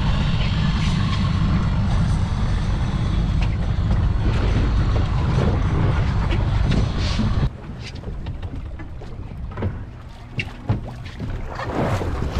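Heavy wind rumble on the microphone aboard a boat at sea. It stops abruptly about seven and a half seconds in, leaving quieter water splashing with scattered clicks.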